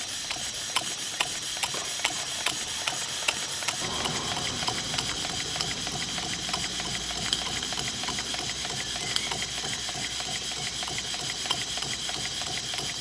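Stuart "James Coombes" model table engine running on steam: a steady hiss of steam leaking from the engine over its fast, even clicking beat, which gets busier and fuller about four seconds in.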